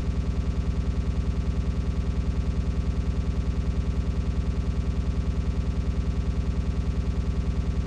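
A steady low hum pulsing evenly, about eight times a second, without change.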